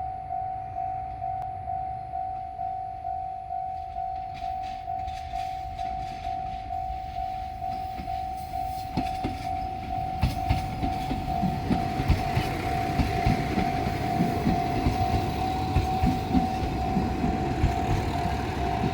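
Japanese railway level-crossing bell ringing steadily at about two dings a second. From about nine seconds in, a Series 185 diesel train passes over the crossing, its rumble and the clatter of wheels over rail joints growing louder under the bell.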